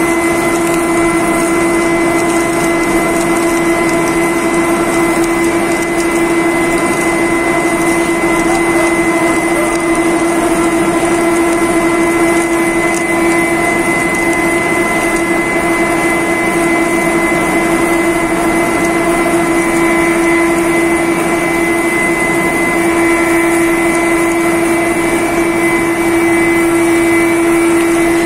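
D51Y-1000 ring rolling machine running: a loud, steady machine drone with a constant whine. A second, higher tone joins about two-thirds of the way through.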